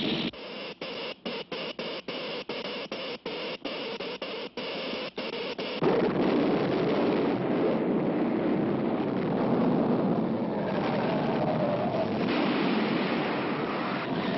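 Cartoon sound effects. For about six seconds an electric crackle sputters in rapid, uneven breaks. It then gives way to a loud, steady earthquake rumble as buildings shake apart.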